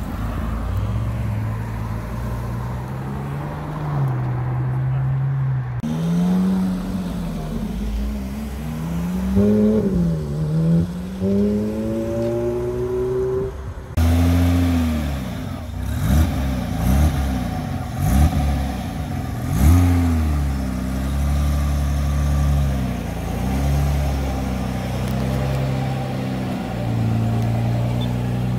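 Ferrari sports car engines idling and being revved. Partway through, an engine climbs and drops in pitch several times as it pulls away through the gears. Later there are several sharp throttle blips in quick succession before it settles back to a steady idle.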